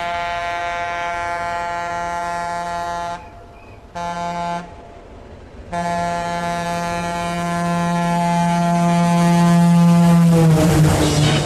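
Breakdown in a techno DJ mix: the kick drum drops out and a single sustained, buzzy horn-like tone holds, breaking off twice in the middle, then returning louder and dipping slightly in pitch before the beat comes back near the end.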